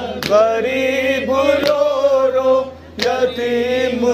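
A man chanting a Muharram noha (Urdu lament) solo into a microphone, with long, wavering held notes. A sharp thump comes three times, about every second and a half, keeping the beat: palm strikes on the chest in matam.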